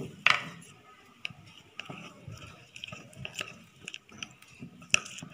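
Spoon stirring custard powder and water in a bowl, clinking and scraping against the sides in irregular ticks, with louder clinks just after the start and near the end.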